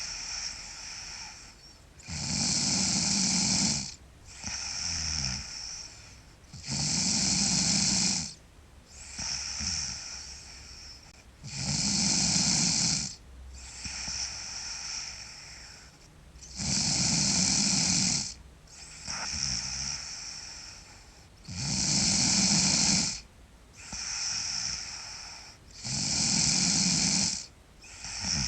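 A sleeping girl snoring loudly in a steady rhythm, about one breath cycle every four and a half to five seconds. Six loud snores come through, each followed by a softer, hissier breath.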